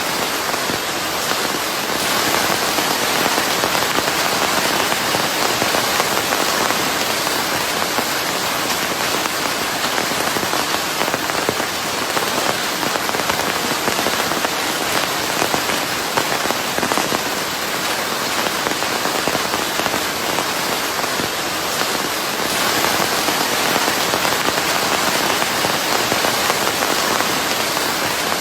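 Steady heavy rain falling on a surface, a dense even hiss with fine crackling drops, swelling slightly in places and sitting under a layer of white noise.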